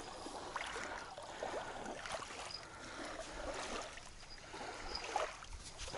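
River water lapping and trickling against the hull of an anchored boat, with faint small clicks and knocks.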